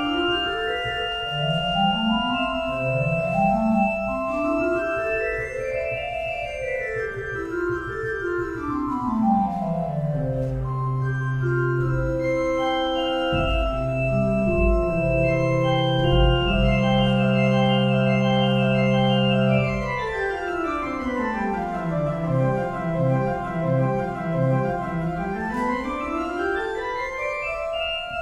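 Casavant pipe organ playing three-voice counterpoint on 8-foot stops. Fast scale runs sweep up and down over long held notes and a sustained pedal bass.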